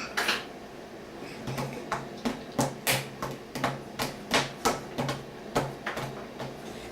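A quick run of sharp mouth clicks, about three a second, starting a couple of seconds in: a baby clicking and smacking with her mouth.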